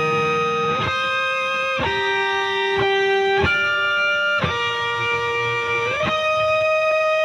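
Background instrumental music: an electric guitar playing a slow melody of long held notes that change about once a second, with one note sliding up about six seconds in.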